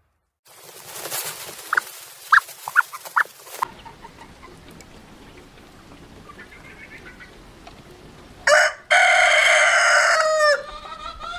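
Chickens clucking a few times, then a rooster crowing loudly about three quarters of the way in: a short first note, then one long call that drops in pitch at the end.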